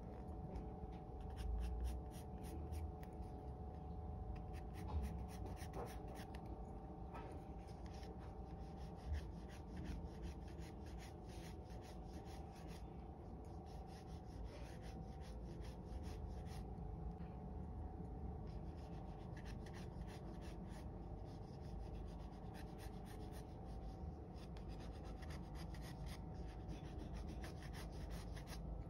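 Pencil scratching on drawing paper as a portrait is sketched, in quick runs of short strokes with a couple of brief pauses.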